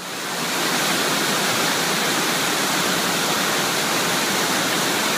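Waterfall cascading over rocks in a mountain creek: a steady rush of white water that swells up over the first half second and then holds even.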